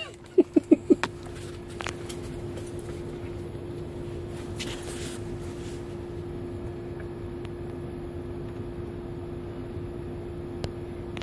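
Steady hum inside a truck cab: one even tone over a light hiss. Four quick short pulses come about half a second in.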